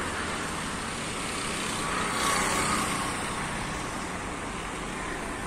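Steady road traffic noise, an even hiss of passing cars, swelling briefly a little after two seconds in.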